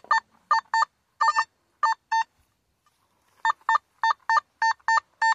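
Nokta Simplex Ultra metal detector beeping over a buried target that reads 71, a mid-tone signal. The short beeps come in pairs, stop for about a second midway, then resume as a quicker run.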